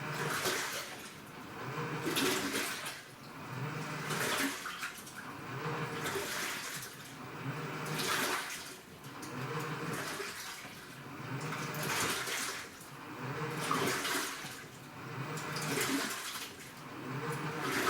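AQUA washing machine with a direct-drive inverter motor agitating its load: water sloshing in swells about every two seconds as the drum's pulsator turns one way and then the other, with a low motor hum under each stroke.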